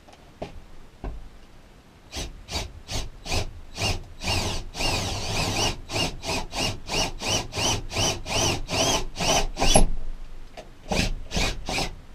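Power drill with a 3/8-inch bit enlarging a hole in a steel ceiling cross member, run in short pulses about three a second, each rising and falling in pitch as the bit grinds at the metal edge. It pauses briefly, then gives a few more pulses near the end.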